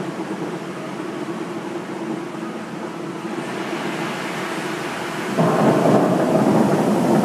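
Bellagio fountain jets spraying, a steady rush of falling water; about five seconds in the rush jumps suddenly much louder as more jets fire.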